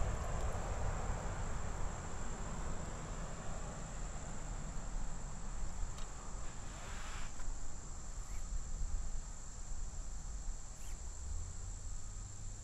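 An insect singing in one steady high-pitched tone, over a low outdoor rumble. A brief hiss comes about six to seven seconds in.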